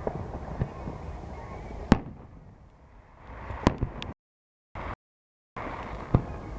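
Fireworks going off: several sharp bangs, the loudest about two seconds in and near the middle, over a steady noisy rumble. The sound cuts out completely twice for about half a second.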